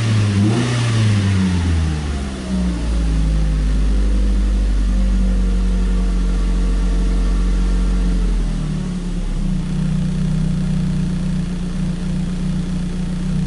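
Ford Focus engine running; its speed falls away over the first couple of seconds after a brief rise, holds steady, then drops to a lower idle about eight and a half seconds in. The car has a misfire fault.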